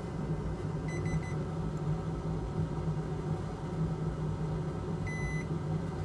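Digital multimeter in continuity mode beeping as its probes check a freshly soldered Zener diode on a circuit board. A short, broken beep comes about a second in and a single clean beep near the end, over a steady low hum.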